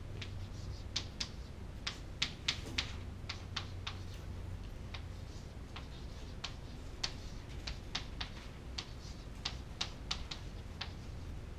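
Chalk tapping and clicking on a chalkboard as equations are written: a string of irregular sharp taps, a few each second, over a steady low room hum.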